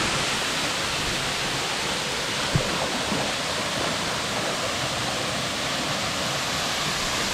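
Waterfall: a steady, even rush of falling water, with one small knock about two and a half seconds in.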